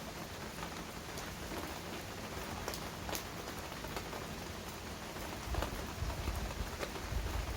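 Heavy rain falling steadily, with individual drops hitting close by. A low rumble comes in over the last two seconds.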